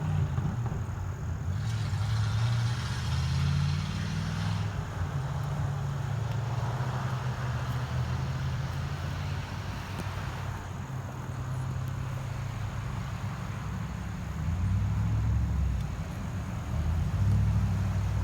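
A car engine running at a low, steady rumble, its note shifting and swelling a few times.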